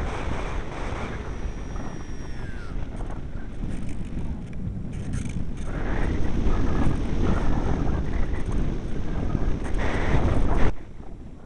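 Strong wind buffeting the microphone in heavy, rumbling gusts that drop away abruptly near the end.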